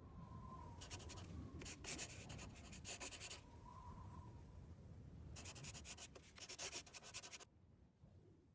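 Faint scratchy rubbing noise in two spells of about two seconds each, then silence near the end.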